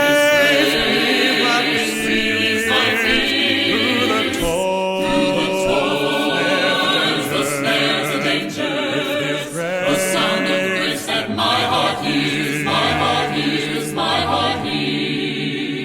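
Choir singing a gospel hymn, several voices holding notes with vibrato.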